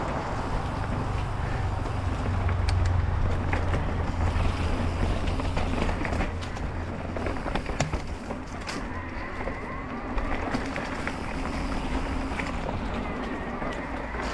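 Mountain bike riding along a dirt trail: wind buffeting the camera microphone as a deep rumble, with tyre noise and scattered clicks and knocks from the bike rattling over the ground. The rumble eases after about six seconds.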